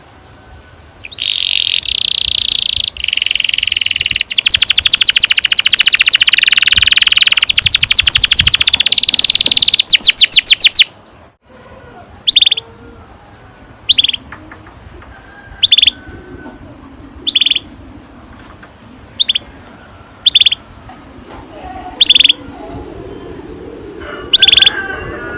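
Domestic canary singing a long rolling trill of rapid repeated notes for about ten seconds, then giving short single chirps every second or two.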